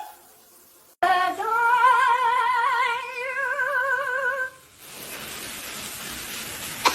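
A single high note sung in an operatic style with wide, even vibrato. It starts about a second in, slides up and is held for about three and a half seconds, and is followed by a steady hiss like running shower water.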